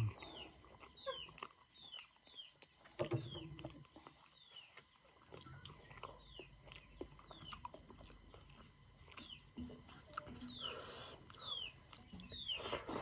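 Close mouth sounds of someone eating rice and curry: scattered chewing and lip smacks. Behind them, a short high falling call repeats roughly once a second.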